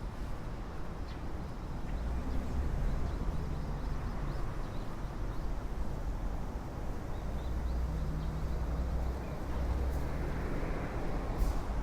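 Road traffic on a city avenue: engines running low, with the hiss of a passing vehicle swelling near the end.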